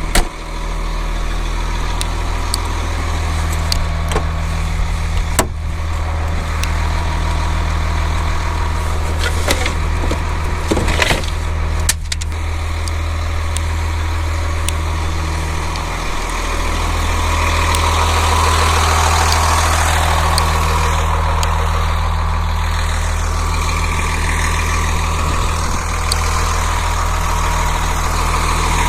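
Converted school bus engine running at low speed while the bus is maneuvered into a campsite, with a few knocks and rattles in the first half and the engine getting a little louder after the middle.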